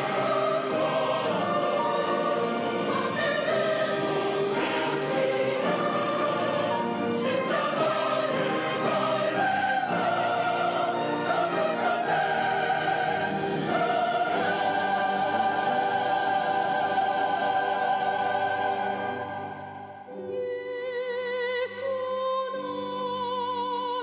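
Church choir singing a sacred anthem in full classical style with instrumental accompaniment. The full choir sustains a long phrase that fades out about twenty seconds in, followed by a thinner, quieter passage of held, wavering notes.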